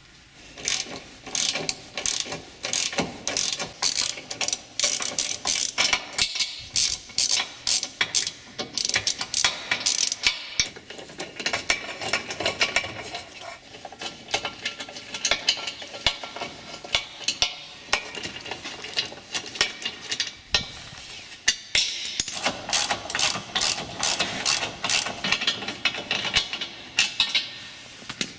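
Socket ratchet wrench clicking rapidly in long runs, with a few short pauses, as the 14 mm bolts holding the rear bumper beam are backed out.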